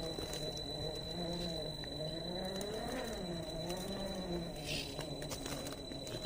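Small brushed electric motor of an RC rock crawler whining, its pitch rising and falling as the throttle is worked, with scattered clicks and crunches.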